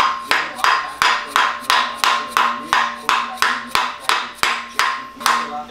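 Hammer strikes on an 11/16-inch socket used as a driver, seating the small pilot ring that the transmission input shaft rides on into the end of a Honda K-series crankshaft. The strikes are steady, about three a second, each with a ringing tone, and they stop near the end.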